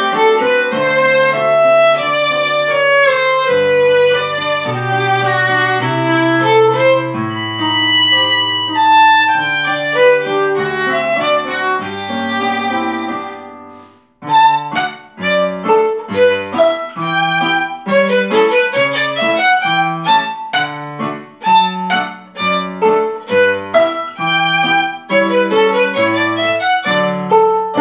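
Violin playing a melody with a lower accompaniment beneath it. The notes are held and flowing at first; after a brief pause about halfway, it switches to short, detached notes.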